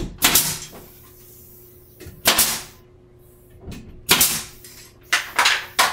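Pneumatic nail gun firing into a wooden wall strip: five sharp shots, each with a short hiss, the last two close together near the end.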